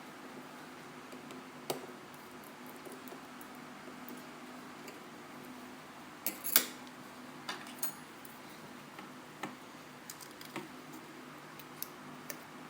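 Scattered small clicks and light metallic taps as a repair tool works a small metal shield loose inside an opened iPhone 4S. There are about eight clicks, the sharpest about halfway through, over a faint steady hum.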